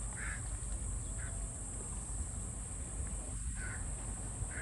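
Outdoor ambience of a steady high-pitched insect drone, with a bird giving a few short calls.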